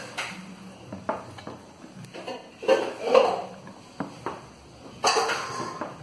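Metal spoon stirring a thick, creamy cake filling in a plastic tub, with irregular clicks and scrapes against the tub's sides. There are louder patches of scraping about three seconds in and again near the end.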